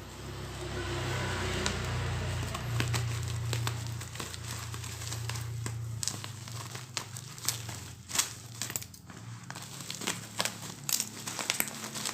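Plastic parcel packaging crinkling and tearing as it is opened by hand, with many short sharp crackles in the second half. A low steady hum sits under the first half.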